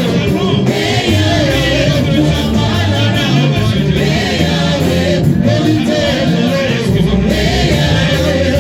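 Amplified gospel music with a group singing over a steady bass line.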